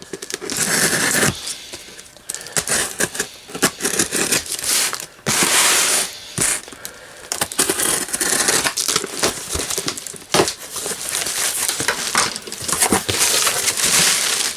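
A cardboard shipping box being opened by hand: irregular rustling, scraping and tearing of cardboard, with packing material crinkling as it is pulled out.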